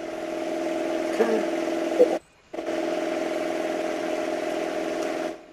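A steady mechanical hum with a hiss, holding a fixed pitch, with a couple of faint clicks. It cuts out for a moment about two seconds in and stops just before the end.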